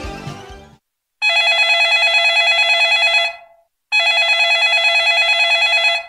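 Phone ringtone: a warbling ring that sounds twice, each ring about two seconds long, with a short silence between.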